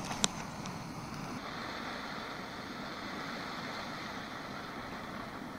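A click of a canister gas torch's push-button igniter, then from about a second and a half in the steady hiss of the torch burning as it is held to a pile of dry brush to light it.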